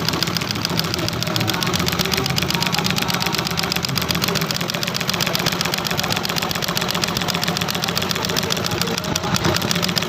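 Sewing machine running steadily as it stitches tarpaulin, its needle strokes making a fast, even clatter.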